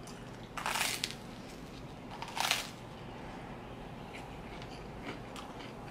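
Crunchy bites into toasted garlic bread: two short crackling crunches in the first three seconds, then quieter chewing with faint small mouth clicks.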